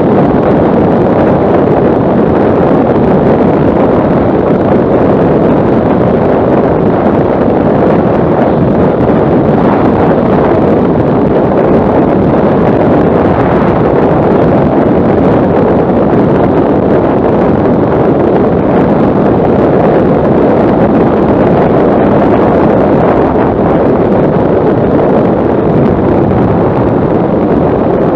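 Steady wind rushing over the microphone of a camera on a motorcycle riding at road speed, covering the bike's running.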